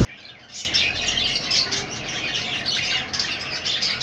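Budgerigars chattering: a dense, continuous run of short high chirps and squawks that starts about half a second in.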